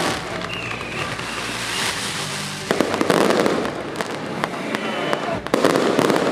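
Firecrackers and fireworks going off in dense, rapid crackling, as in a temple procession's firecracker salute, with louder volleys about a third of the way in and again near the end.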